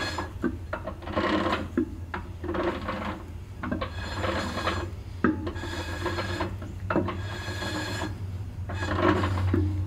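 Brake shoes of a 1964 Ford 4000 tractor lightly dragging inside the rear drum as the drum is turned by hand: a scratchy rubbing in repeated swishes, catching and releasing, with a few sharp clicks. This slight, even drag is the sound of a correctly adjusted drum brake.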